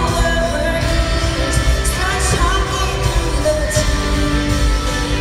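A live country-pop band playing in an arena, with a woman's voice singing, heard from the audience through a phone recording.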